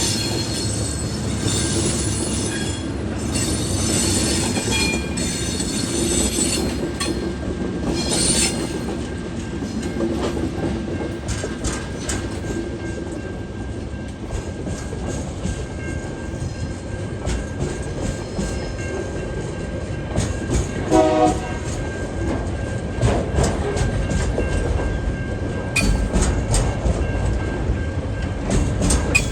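TasRail diesel freight train rolling past on its arrival: a steady rumble of wheels and wagons, with high-pitched wheel squeal over the first several seconds and rail-joint clicks later on. A short horn-like tone sounds about two-thirds of the way through.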